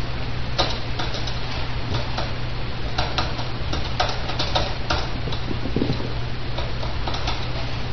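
Puppies shuffling about on a sheet of bedding: scattered light clicks and crackles, bunched around the middle, over a steady hiss and low hum.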